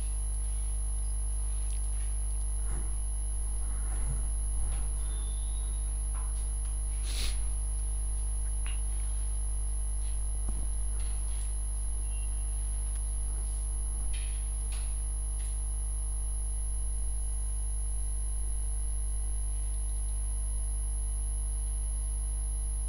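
Steady electrical mains hum with a constant high whine, with a few faint clicks scattered through it.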